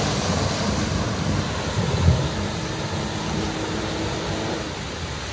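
Jeep Wrangler driving through a deep, water-filled mud rut: the engine runs under load while muddy water splashes and sprays around the wheels, with a single thump about two seconds in.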